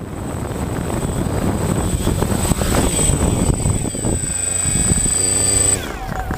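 DJI Phantom quadcopter's propellers spinning up on the sand and running with a steady whir and a high whine, then winding down with falling pitch near the end.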